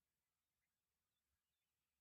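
Near silence, with one or two very faint high chirps.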